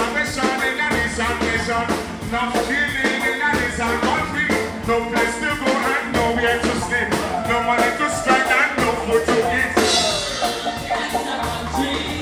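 Live vocal performance: a man singing into a microphone over loud amplified music with a steady drum beat.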